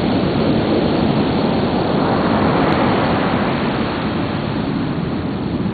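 High ocean surf breaking and washing in as white water: a steady, dense rush of waves that eases slightly after about four seconds.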